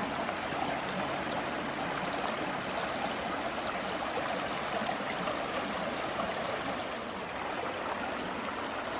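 Creek running high and fast after days of rain, a steady rush of flowing water.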